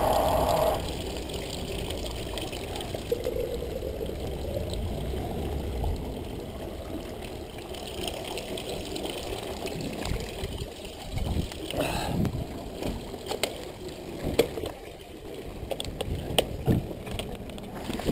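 Water running and trickling at a stone ablution fountain (şadırvan). From about two-thirds of the way in, the mountain bike adds sharp clicks and knocks as it rolls over stone.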